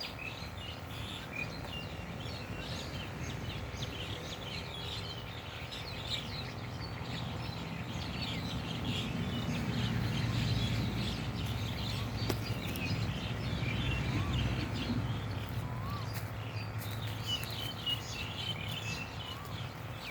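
Small birds chirping again and again over a steady low rumble of outdoor background noise. The rumble grows louder about halfway through and eases off near the end.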